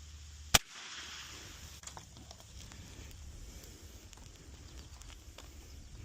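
A single sharp .22 rimfire gunshot about half a second in, with a brief ring-out after the crack.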